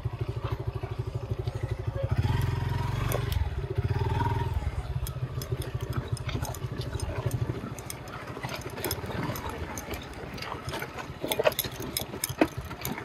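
Motorcycle engine running at low revs. It picks up for a moment about two seconds in, then drops back to a softer note. Through the second half, loose stones clatter and knock under the tyres as the bike rolls over a rocky dirt trail.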